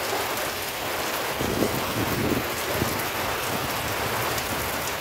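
Rain falling continuously on trees and garden foliage, a steady hiss.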